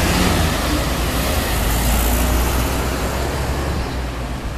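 Road traffic passing close by: a Hong Kong green minibus drives past with engine rumble and tyre noise. The sound is loudest in the first couple of seconds and eases off toward the end as it moves away.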